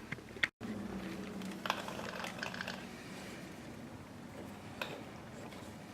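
A few faint metallic clicks and clinks of tools and steering parts being handled, over a low steady hum.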